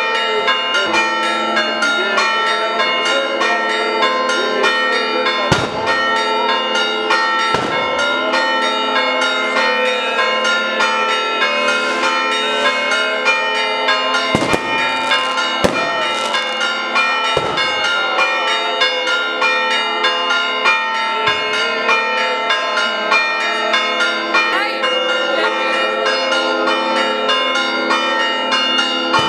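Church bells pealing continuously, many bells ringing over one another in a dense, steady clangour. Several sharp bangs break through, about six of them, mostly in the middle of the stretch.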